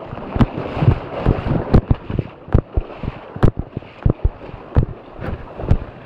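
Wind rumble and handling noise on a small camera microphone, with many irregular knocks and thumps as the camera is carried and jostled.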